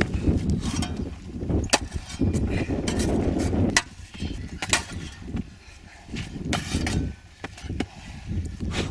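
Pickaxe, shovel and hand-tool strikes chopping into hard-packed sand, irregular sharp thuds and scrapes. A low rumble covers the first four seconds and stops abruptly about four seconds in.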